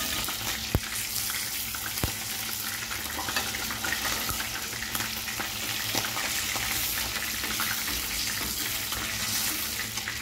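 Fish frying in a pot of hot oil: a steady sizzle, with two sharp clicks about one and two seconds in.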